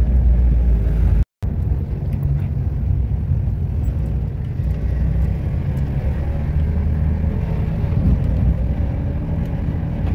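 Moving car heard from inside the cabin: a steady low rumble of engine and road noise. The sound drops out completely for a moment about a second in.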